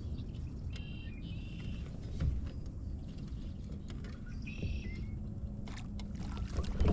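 Steady low rumble of wind and water around a kayak while a fish is played to the surface. Two short high-pitched calls come about a second in and again near five seconds, with a brief knock about two seconds in.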